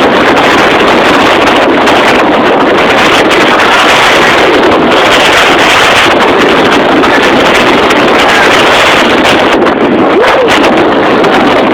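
Storm-force wind gusting straight into the microphone: loud, constant wind noise that hardly lets up.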